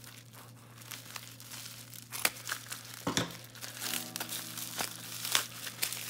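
Plastic bubble wrap crinkling and crackling as hands unwrap a small padlock, with irregular crackles and a few sharper snaps.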